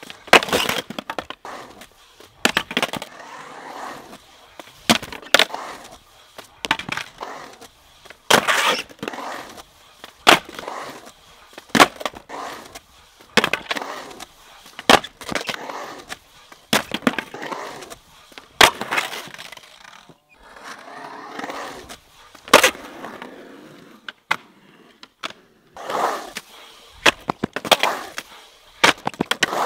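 Skateboard riding on concrete: urethane wheels rolling with a steady rumble, broken by a long run of sharp clacks as the board is popped, slapped down on landings and knocked against the bowl's coping.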